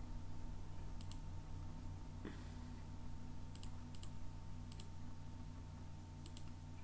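Computer mouse button clicked five times, each click a quick press-and-release pair, over a steady low electrical hum. A softer knock comes about two seconds in.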